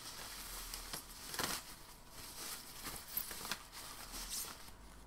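Packaging material rustling and crinkling with scattered light taps and clicks as a guitar neck is handled out of its box.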